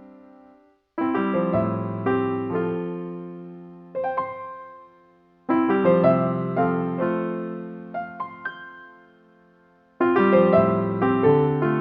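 Background music: soft piano phrases of sustained chords that fade, each separated by a brief pause.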